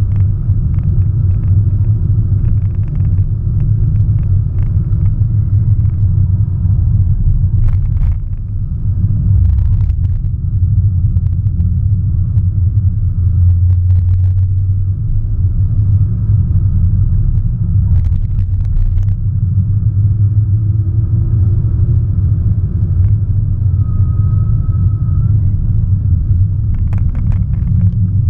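Inside the cabin of a 2017 Audi S1 Sportback under way: a loud, steady low rumble of its turbocharged four-cylinder engine and road noise, with a few short knocks and clicks scattered through it.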